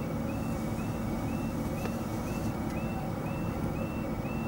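Level crossing audible warning alarm sounding, a short electronic yelp that steps up in pitch, repeating about twice a second while the red lights flash for an approaching train. Underneath runs a steady low engine rumble from the waiting cars.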